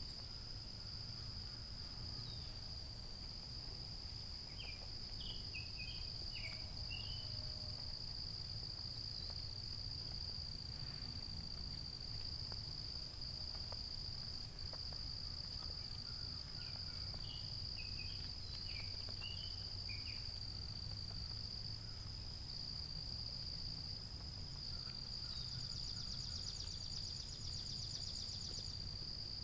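Steady high-pitched insect chorus of crickets, with a low rumble underneath. Short bird chirps come in two brief runs, and a pulsed insect buzz starts a few seconds before the end.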